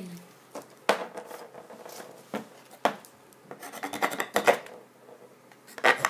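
A cheap multi-tool's blade scraping and rasping at the edge of a plastic DVD-R disc, with a few sharp clicks as the tool and disc are handled. The blade does not cut through the disc.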